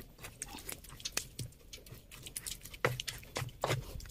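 Stone pestle (ulekan) crushing and grinding a wet chili and shrimp-paste sambal in a stone mortar (cobek): irregular soft squishes and knocks of stone on stone.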